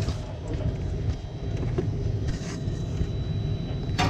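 Steady low machinery rumble with a faint, steady high-pitched whine over it. A sharp click comes near the end.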